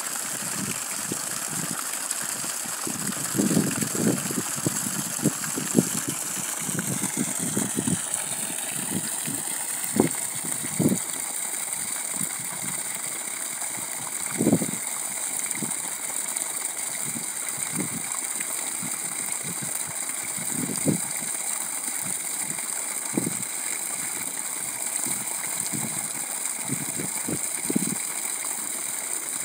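Water gushing from the end of an irrigation hose into a flooded planting trench: a steady rush with irregular, lower splashing sounds throughout.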